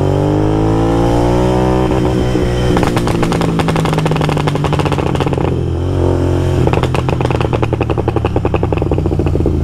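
Royal Enfield Continental GT 650's 648 cc parallel-twin engine, stage-tuned by Code 6, revving up in the first two seconds and then popping and crackling on the overrun in two spells, the second starting about seven seconds in. These are the pops and bangs the tune is meant to produce.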